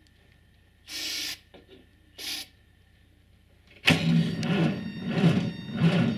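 An aerosol can hisses twice in short bursts, spraying starting aid into the air intake of a cold Massey Ferguson 35 tractor engine. Then the starter cranks the engine over slowly with a rhythmic pulse of about one and a half beats a second, while the engine does not fire.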